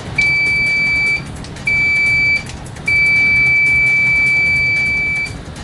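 KPS-MT900 digital multimeter's continuity beeper sounding three times with a steady, high-pitched tone: a beep of about a second, a shorter one, then a long one of about two and a half seconds. Its maximum output reads about 71 dBA on a sound level meter.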